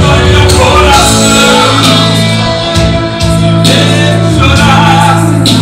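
Loud live band music with a male singer, a steady low accompaniment and repeated cymbal hits.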